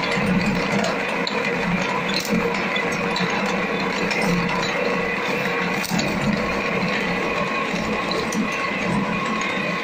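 Small twin-shaft claw shredder running steadily, its rotating cutter discs tearing up Tetra Pak cartons and packaging. A steady machine hum runs under scattered sharp cracks.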